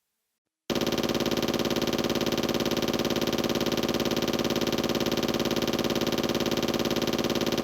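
Synthesized sound effect from a Yamaha YPT-300 Portatone keyboard: an engine-like, rapidly pulsing buzz that starts abruptly about a second in and holds steady.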